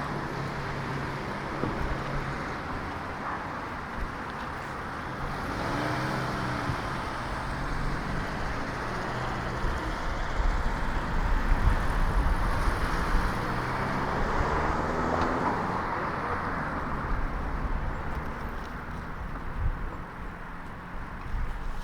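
City street traffic heard from a moving bicycle: cars pass, one about six seconds in and more through the middle, over steady road noise.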